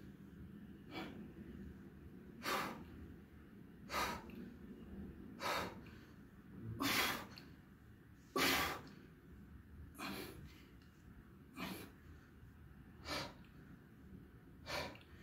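A man breathing hard through dumbbell side bends: a short, forceful exhale about every one and a half seconds, roughly ten in all, in time with the bends.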